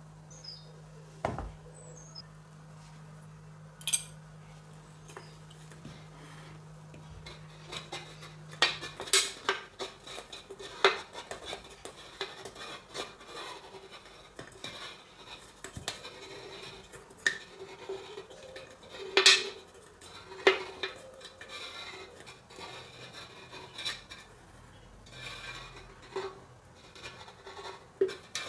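An aluminum drink can and a metal cube handled on a table: a few light metal clicks at first, then from about eight seconds in the can being turned against a utility-knife blade held on the cube, with irregular scraping and sharp metallic clicks as the blade scores a line around the can.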